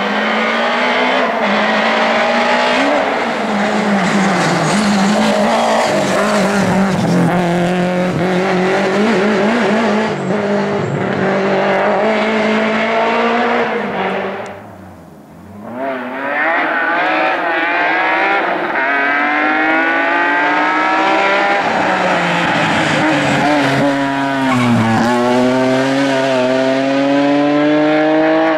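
Rally car engines run hard at high revs, with a short lull about halfway through. After the lull a car accelerates through the gears: the engine note climbs and drops back at each shift. Near the end it dips sharply, then climbs again. Some tire squeal can be heard.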